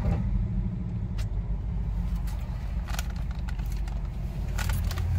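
Road noise inside a moving car's cabin: a steady low rumble, with a few light clicks.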